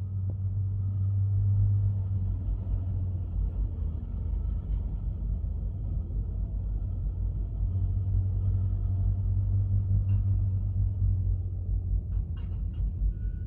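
Diesel engine of a John Deere wheel loader running with a steady low drone that swells and eases as the machine works, and a few short knocks near the end.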